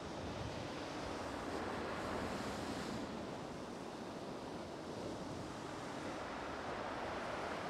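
Sea waves breaking and washing up a shingle beach: a steady surf rush that swells and eases a little.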